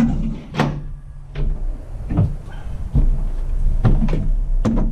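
A handful of sharp knocks and clunks at irregular intervals, with a low rumble underneath: footsteps and gear knocking on a pickup truck's bed as the gooseneck hitch is about to be unlatched.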